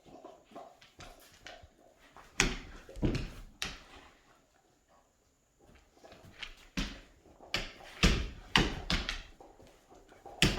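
Irregular knocks, thumps and rustles in short clusters, the loudest groups about two and a half seconds and eight seconds in.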